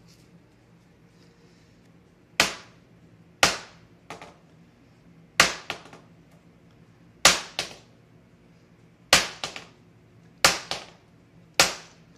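The plastic LED end cap of a light-up bo staff smacked hard against a tile floor: seven sharp cracks a second or two apart, several followed by a smaller rebound knock.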